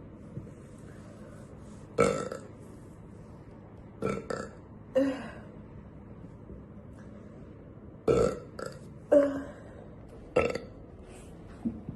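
A woman burping repeatedly: about eight short burps, some in quick pairs, with pauses of a second or more between them.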